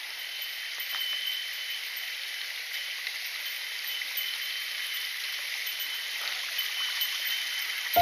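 Shallow, rocky mountain stream running over and between moss-covered boulders: a steady rush of water. A faint high ringing tone comes and goes above it.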